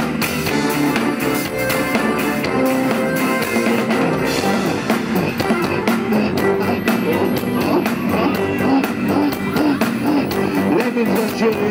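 Live rock band playing through a PA: electric guitars and drum kit driving a rock song, with a man singing into a hand microphone.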